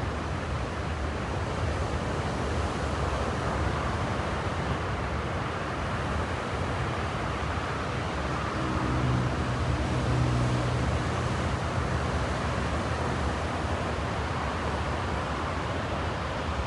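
Steady rush of surf from breaking ocean waves. A low engine hum with a few overtones swells in and fades out around the middle.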